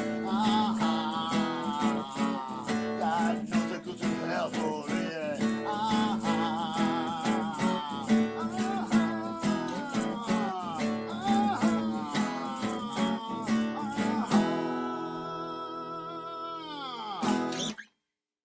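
Acoustic guitar strummed in a steady rhythm, with a melody line over it. Near the end it settles on a held chord that rings out, then stops abruptly.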